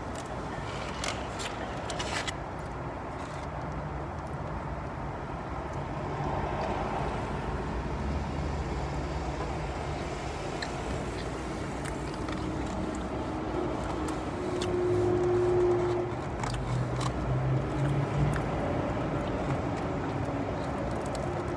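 Low, steady vehicle rumble heard from inside a parked car's cabin, with a few small clicks in the first couple of seconds from sipping through a straw and eating. The rumble swells for a couple of seconds in the second half.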